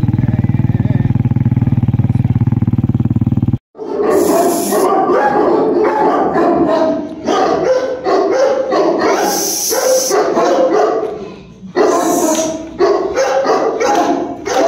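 A vehicle engine running steadily for the first few seconds, then, after a sudden break, a pack of large dogs barking loudly and repeatedly, many voices overlapping.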